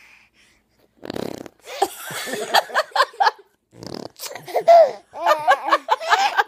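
A young boy blowing a wet, fart-like raspberry with his mouth about a second in, then laughing; a second raspberry about four seconds in is followed by more laughter.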